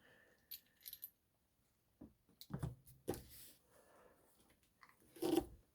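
A few light clicks and knocks from parts and tools being handled on an opened-up washing machine, the loudest knock near the end.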